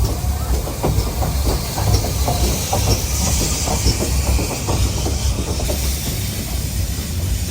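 Steam train on the move: a steady heavy rumble with irregular rattling and knocking, and a hiss of steam that swells and fades in the middle.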